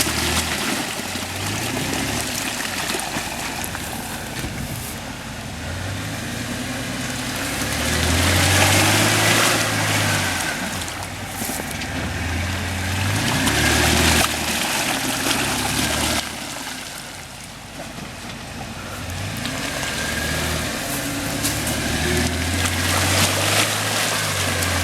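Off-road 4x4 SUV engine revving up and dropping back again and again, with surges of wet spraying noise as the wheels spin in deep mud: the vehicle is stuck and not getting through.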